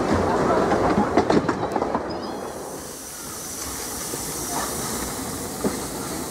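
Narrow-gauge train carriage running along the track, its wheels clicking and rattling over the rails. About two seconds in this gives way to a steady hiss of steam from a small steam tank locomotive standing still.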